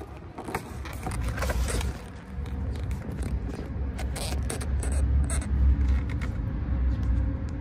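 Handling noise of a phone being pushed into an engine bay: irregular scrapes, rubs and small knocks against engine and gearbox parts over a steady low rumble.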